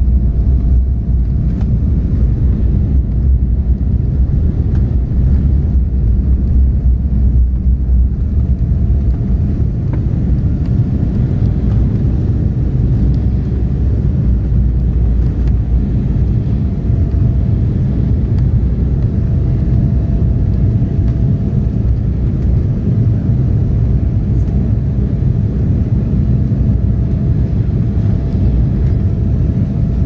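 Steady low rumble of jet engine and airflow noise inside the passenger cabin of an Embraer 190 airliner in flight, with a faint steady whine running through it.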